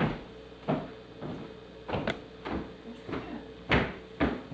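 A series of short knocks and rustles as small gifts and their packaging are handled, several times over a few seconds, louder near the end.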